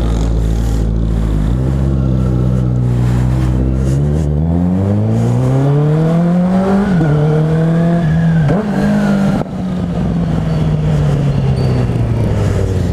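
Motorcycle engine heard from the bike as it rides off. The revs climb steadily for a few seconds, with brief dips at gear changes about seven and eight and a half seconds in. The throttle then closes and the engine runs on steadily at lower revs.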